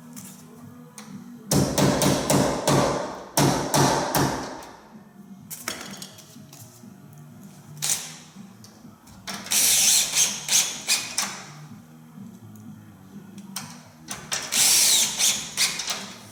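Background music, broken by three loud bursts of clattering and rattling.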